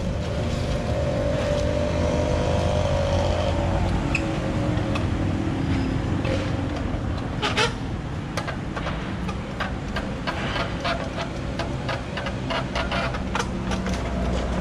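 Steady low rumble of traffic, with a passing engine whose pitch falls over the first few seconds. From about halfway, a run of sharp clicks and knocks as a trials bicycle's tyres and frame strike the boulders during hops.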